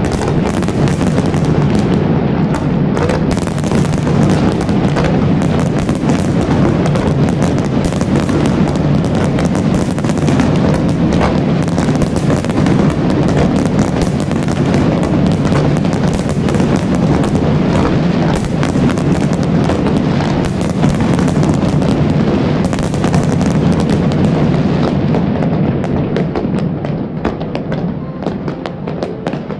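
Fireworks display at full barrage: a dense, continuous crackle and banging of many shells bursting at once over a steady low rumble. It thins and fades over the last few seconds.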